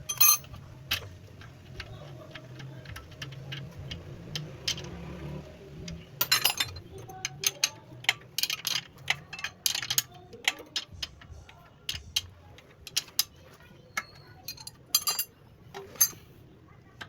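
Irregular metallic clicks, taps and clinks of tools and metal parts being handled during shock absorber work, a few of them ringing briefly.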